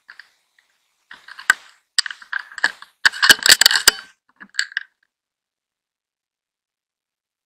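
Clicks and rattling knocks from the rifle and its night-vision scope being handled and swung. They come scattered at first, then in a dense loud cluster about three seconds in, and stop suddenly before five seconds.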